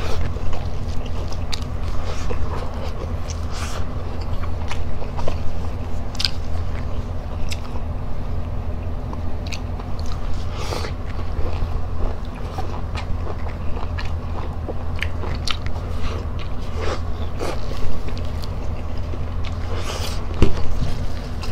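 A person chewing and biting food eaten by hand, close to the microphone, with many short clicks and crunches scattered throughout. A steady low hum runs underneath.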